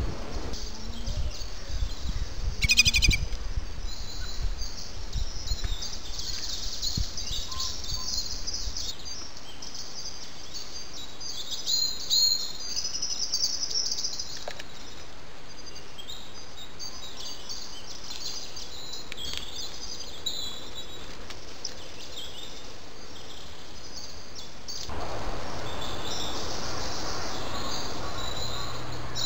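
Wild woodland birds singing and chirping in quick high-pitched phrases, over a steady hiss from the trail camera's microphone. A brief rapid rattle comes about three seconds in, and the hiss grows louder near the end.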